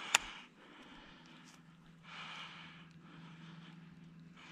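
A single sharp click just after the start, then soft breathing close to the microphone over a faint steady hum.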